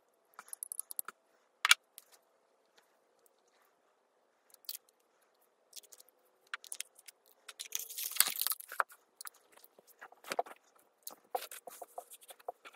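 Small plastic fountain pens being handled: scattered short clicks and taps of caps and barrels, with a longer scraping rustle about eight seconds in.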